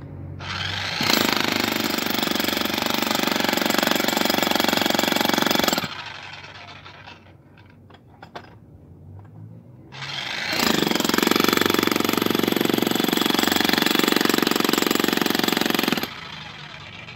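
Handheld electric demolition hammer chiselling into a concrete drain wall, running in two loud bursts of about five seconds each with a pause of about four seconds between them.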